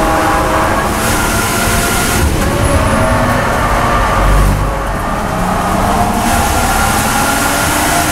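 BMW M240i race car's turbocharged straight-six heard from inside the cockpit. The revs fall as the car brakes and shifts down from fourth to third, then about six seconds in it goes to full throttle and the engine climbs again in third.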